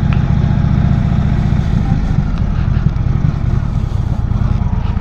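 Indian Chief Vintage's V-twin engine running steadily, a low pulsing note that holds level without revving.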